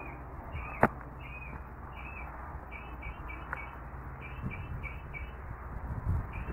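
A small bird chirping over and over in short, quick notes, often in runs of three or four. A single sharp click about a second in is the loudest sound.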